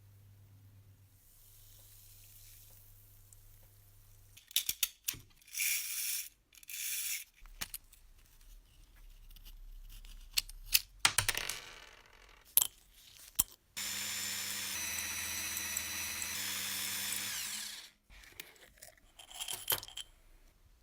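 Workshop tool sounds: sharp clicks and short scraping bursts, then a small electric power tool running steadily for about four seconds in the second half, followed by a few more clicks.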